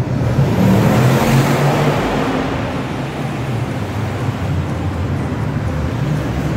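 Road traffic noise, with a vehicle passing close by that swells in the first couple of seconds and then eases into a steady rumble. The sound cuts off suddenly at the end.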